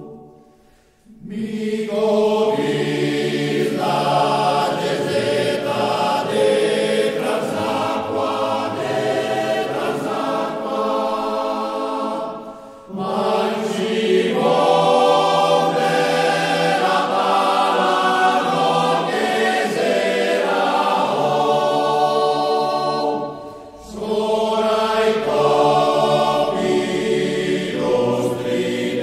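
Choir singing in long, held phrases, with brief pauses between phrases about a second in, about halfway through and near the end.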